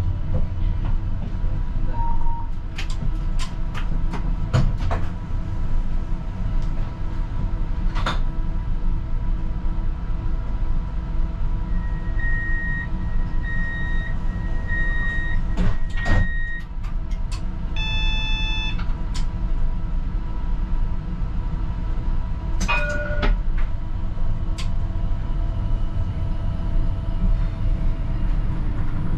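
Cab of a GVB 15G tram (CAF Urbos 100): a steady low rumble with scattered clicks. A little before halfway there is a run of short, evenly spaced beeps, followed by a brief multi-tone chime and, a few seconds later, another short tone.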